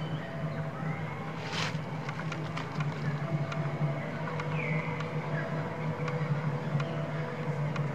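A steady low hum with faint short chirps over it and a brief rustle about a second and a half in.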